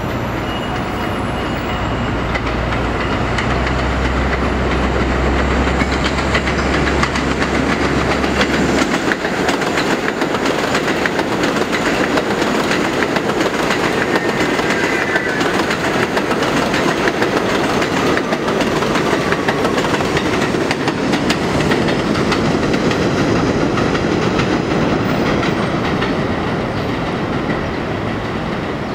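A New York City 7 subway train running on the elevated steel structure at the station, its wheels clattering steadily over the rail joints. A low hum stops about nine seconds in.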